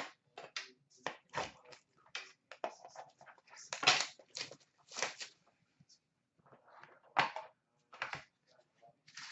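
Hands opening a sealed hockey card pack: the wrapper crinkling and tearing in short, irregular rustles, loudest about four seconds in and again near seven seconds.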